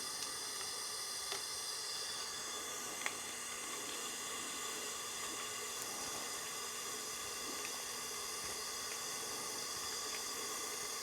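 Steady low hiss of background noise, with a few faint light clicks as small parts are handled; the sharpest click comes about three seconds in.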